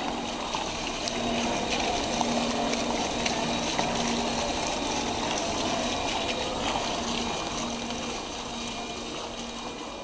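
Small fountain jet bubbling up and splashing into a shallow tiled pool, a steady rush of water.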